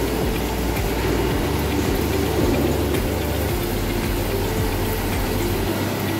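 Steady mechanical running noise of snack-line machinery: a continuous hum and rumble with no distinct events.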